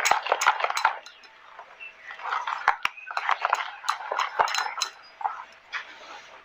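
Kitchen utensils and dishes clinking and clattering, with scraping in between, in two bursts of handling about two seconds apart.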